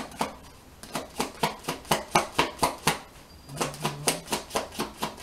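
A deck of cards being shuffled overhand by hand: quick, regular card slaps about four a second, with a short pause around the middle.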